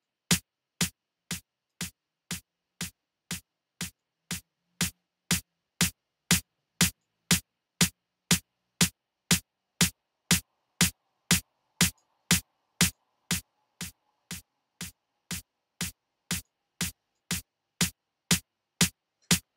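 A dry snare drum sample looping at a steady two hits a second, played through a software compressor. The hits get louder, fall back, then rise again near the end as the compressor's dry/wet mix is turned.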